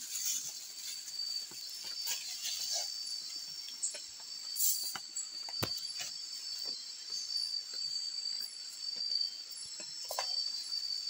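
Steady high-pitched chorus of night insects such as crickets in tropical forest, with scattered clicks and rustles from a plastic bag, a metal pot and a cup being handled while rice is scooped.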